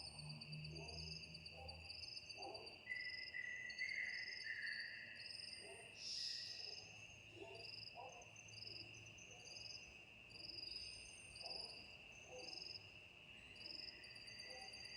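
Chorus of crickets and other insects: a steady high drone with overlapping short, pulsed chirping trills above it. A short run of lower call notes comes about three seconds in, and a brief louder rasp about six seconds in.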